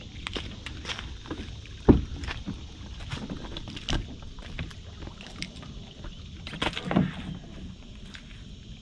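Scattered knocks and thumps as a man moves about a small inflatable dinghy and brings it ashore by hand, with a sharp thump about two seconds in and another cluster of knocks toward the end.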